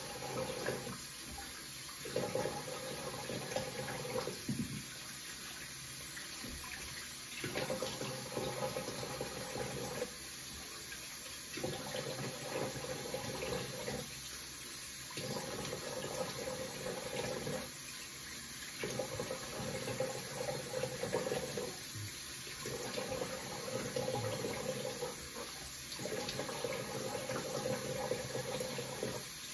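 Bathroom sink tap running, the sound of the stream changing every second or two as hands cup and splash water from it: rinsing the face after a shave.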